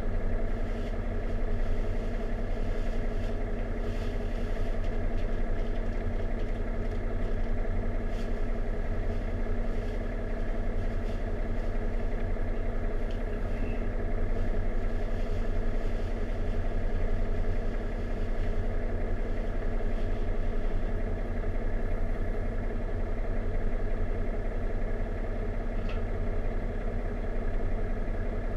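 Diesel railcar's engine idling steadily, a constant low hum heard from inside the passenger cabin while the train stands at the station.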